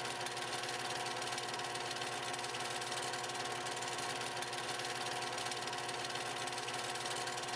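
Film projector running: a steady mechanical whir with a fast, even rattle, starting and cutting off abruptly.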